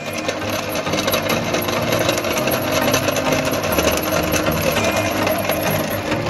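Large stainless-steel meat grinder running steadily, a continuous whirring rattle as its auger turns while slime is fed into the hopper.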